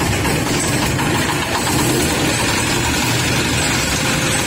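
Single-cylinder horizontal diesel engine running steadily, the power unit of a sago trunk grating machine.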